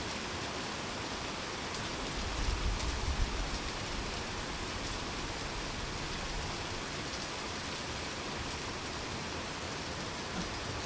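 Heavy rain falling steadily in a rainstorm, a dense, even hiss of drops, with a brief low rumble swelling about two seconds in.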